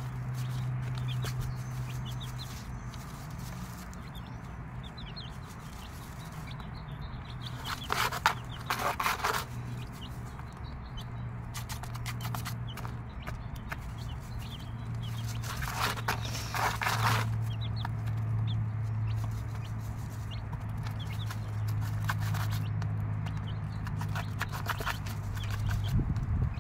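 Mother hen clucking low while her six-day-old chicks peep faintly. Twice, about a third of the way in and again past the middle, there is a brief louder rustle in the wood-shavings bedding.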